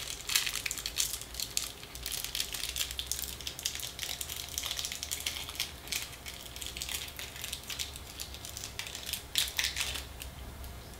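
Fingers working small steel piston-pin C clips (circlips) open: a run of light, irregular clicks and scratches, thickest about two seconds in and again near the end.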